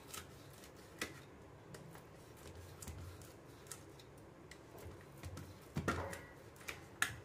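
Faint clicks and light scrapes of a steel knife scoring cuts through a set tray of nutty dry-fruit sweet, the blade now and then tapping the steel plate, with a few louder knocks near the end.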